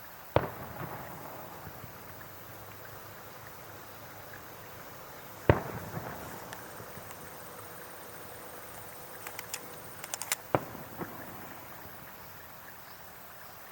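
Fireworks shells bursting in the sky: two loud single bangs about five seconds apart, each trailing off in an echo, then a quick run of sharp crackling pops about ten seconds in.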